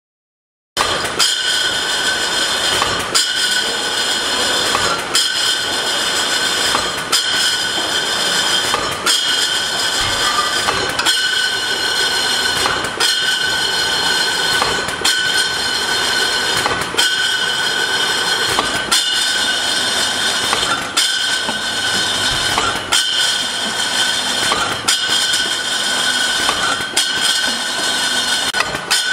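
Bottle labelling machine and conveyor running, glass beer bottles clinking as they pass through, with a steady high whine and a knock about every two seconds. It starts just under a second in.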